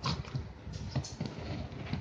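A dog scuffling about on a hard floor while showing temper: short low grumbles among scattered clicks and knocks, the sharpest right at the start and about a second in.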